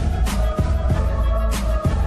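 Background music with heavy bass and a steady drum beat.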